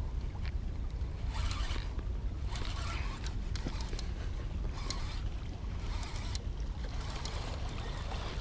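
Fishing reel cranked in short raspy bursts while a hooked spotted bay bass is brought in, over a steady low wind rumble on the microphone.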